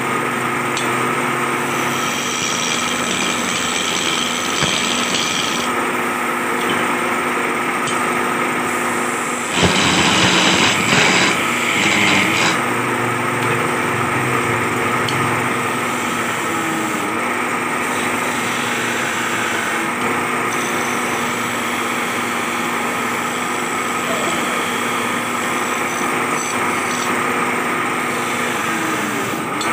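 Belt-driven wood lathe running steadily with a constant hum, spinning a wooden cot-leg blank. About a third of the way in, a louder rough grating burst lasts about three seconds.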